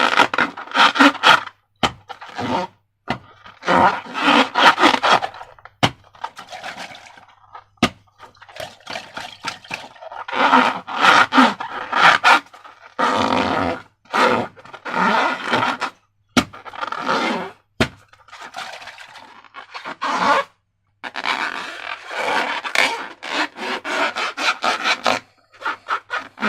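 Slime being squeezed and worked by hand, giving repeated wet squelching and scraping noises in short bursts with brief pauses between them. A few sharp clicks sound here and there.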